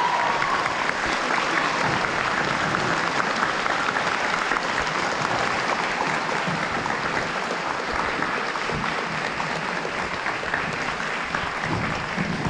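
A large crowd applauding: many hands clapping at once, steady and dense, easing off slightly near the end.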